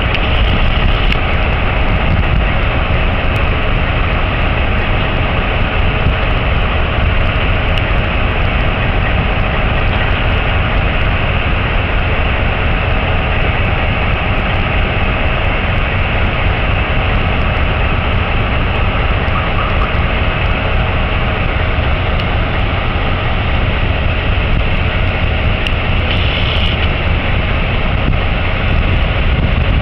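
Steady, loud mechanical rumble with a hiss over it and a faint steady hum, unbroken throughout: harbour machinery and ship engines.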